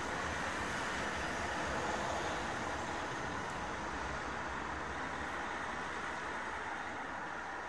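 Steady, even rush of distant road traffic.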